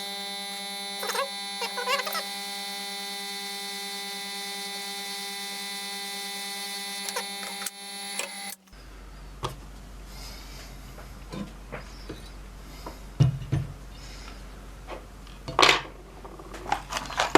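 Hot air rework station's blower running with a steady whine made of many tones, cutting off abruptly about halfway through. After that there is a low hum and light clicks and taps of tools working on the board.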